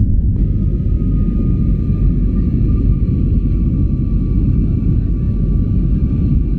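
Jet airliner cabin noise: the engines and airflow make a steady low rumble with a faint steady whine above it, heard from inside the cabin.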